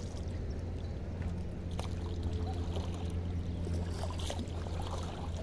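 Small wooden boat being poled through shallow water, with a few faint knocks and water sounds from the pole over a steady low hum.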